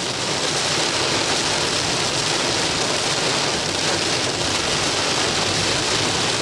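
Steady hiss of heavy rain, swelling up at the start and then holding even.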